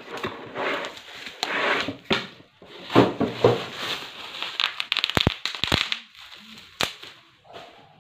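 Bubble wrap and cardboard packaging crinkling and rustling as hands tear open a box and pull out a plastic-wrapped item, with several sharp snaps in the second half.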